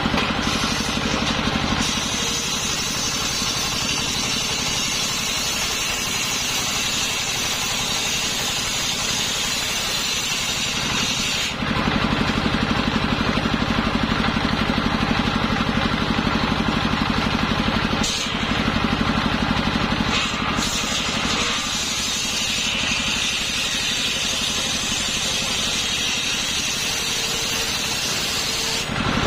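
Circular saw running steadily, cutting through hard coconut-palm wood: the hum of the drive is joined by a hissing whine of the blade in the wood from about two seconds in to about twelve seconds, and again from about twenty-one seconds on.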